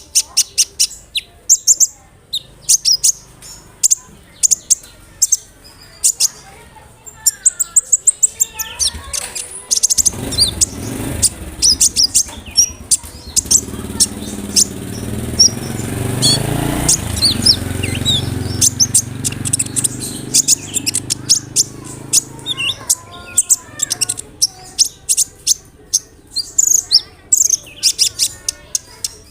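Kolibri ninja (brown-throated sunbird) singing: fast runs of short, sharp, high chirps and trills. A low noise swells up under the song through the middle stretch.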